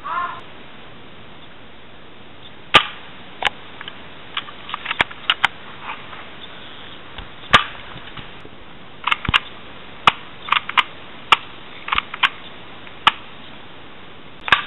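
Airsoft guns firing in a skirmish: about twenty sharp, irregular shots, some single and some in quick clusters, with the loudest a few seconds in.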